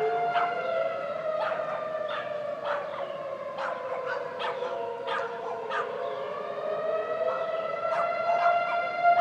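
Several outdoor tornado warning sirens wailing at once for a tornado warning, their overlapping pitches slowly sinking and then rising again late on. Short sharp sounds repeat over them about once a second.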